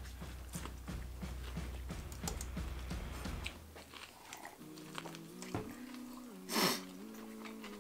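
People chewing and biting into sub sandwiches, with many small wet mouth clicks. Background music with stepping notes comes in about halfway, and a short, loud burst of noise stands out near the end.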